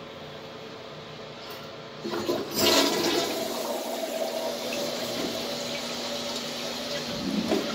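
1994 Briggs Conserver toilet flushed by its lever: after a quiet start the water comes in suddenly about two and a half seconds in with a loud surge, then runs on as a steady rush through the bowl.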